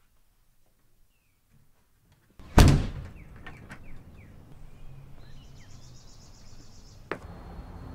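A door slams shut once, suddenly and loudly, about two and a half seconds in after near silence; then outdoor ambience with birds chirping.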